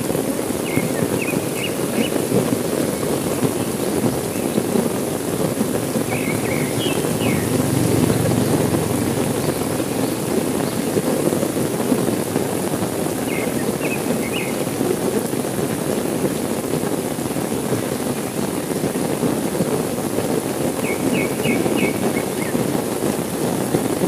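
Steady heavy rain falling. A bird calls four times in short runs of quick high chirps.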